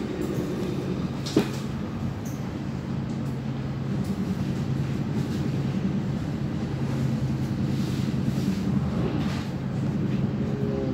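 Inside a moving NS VIRMm double-deck electric train: steady running noise with a low hum, and one sharp knock about a second and a half in.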